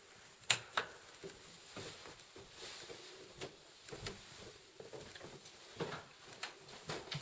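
Footsteps going down carpeted stairs and across a hardwood floor: irregular knocks and taps, with two sharp clicks about half a second in and a cluster of knocks near the end.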